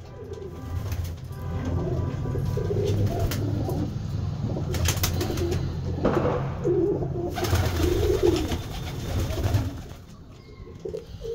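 Several Satinette fancy pigeons cooing together, overlapping low pulsing coos that carry on throughout. A few short rustling noises come around the middle.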